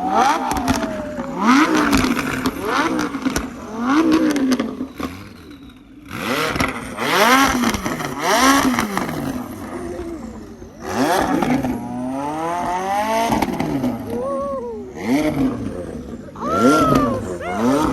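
Car engine revved hard again and again, each rev a quick climb and fall in pitch, with a short lull about six seconds in and a longer held rev around twelve seconds.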